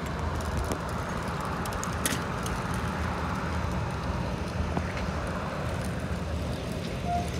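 Steady rumbling road noise of a bicycle rolling along asphalt on its rear wheel alone, the front wheel removed, with a faint click about two seconds in and another near five seconds.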